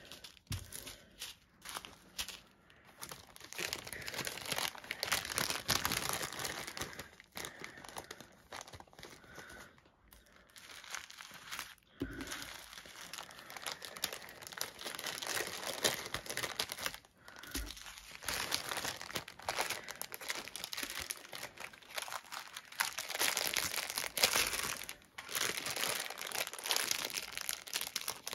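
Small plastic zip-lock bags of diamond painting drills crinkling as they are handled and gathered up, with a few short pauses.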